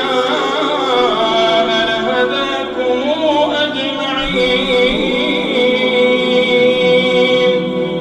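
A man's voice chanting Quran recitation in a slow, melodic style, drawing the words out into long ornamented notes. The pitch winds up and down at first, then settles on one long held note.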